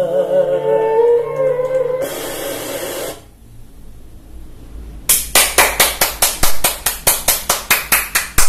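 A man singing with vibrato from a TV's analog broadcast, cut off about two seconds in by a second of loud static hiss as the transmitter goes off the air. From about five seconds in comes a fast, even run of sharp claps or smacks, about three a second.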